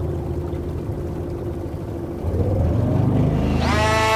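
Suzuki DF2.5 single-cylinder four-stroke outboard motor running with the boat underway. Near the end its pitch rises as it revs up to a higher, steady speed.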